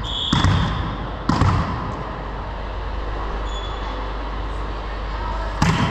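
A volleyball bounced on a hardwood gym floor: two thuds about a second apart near the start and a third near the end.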